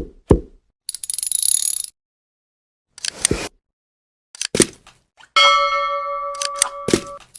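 Short cuts of small clicks and clinks and a brief hiss, then a sustained bell-like ding ringing for nearly two seconds about two thirds of the way through.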